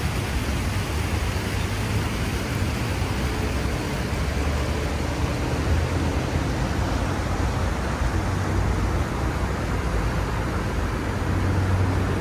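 Steady road traffic noise, a continuous rumble of passing vehicles.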